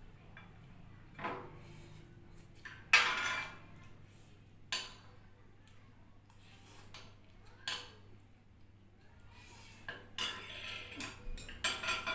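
Cutlery clinking and scraping against a plate or bowl of noodles while eating: a few separate clinks, the loudest about three seconds in, then a quick run of clinks near the end.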